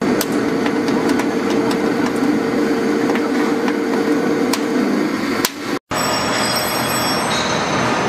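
Roll forming machine for PV support profiles running, a metal profile feeding through its forming rollers: a steady mechanical hum with scattered clicks. The sound cuts out briefly about five and a half seconds in and comes back as a different, higher-pitched running noise.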